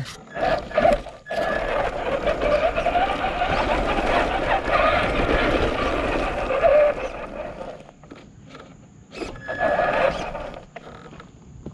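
Traxxas Rustler 4x4 RC truck driving over loose, stony dirt, its electric motor whining and its tyres crunching over stones. The run builds about a second in, holds for about six seconds and fades, with a shorter second burst of throttle near the end.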